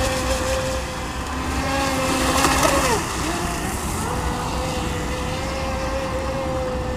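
X-Blaze RC speedboat's water-cooled brushless motor whining at a steady pitch as the boat skims across the water. A brief rush of noise comes about two and a half seconds in, then the pitch drops as the throttle eases and holds steady again from about four seconds in.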